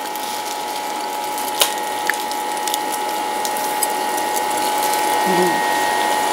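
Steady mechanical whirring with a constant whine underneath, from a machine running nearby; a single sharp click about one and a half seconds in.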